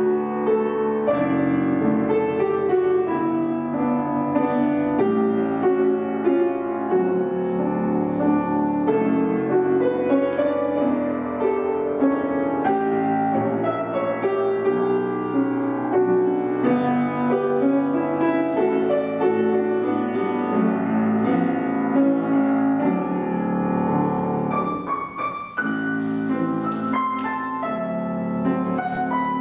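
Piano playing classical-style music as a continuous flowing accompaniment, with a short dip in the playing near the end.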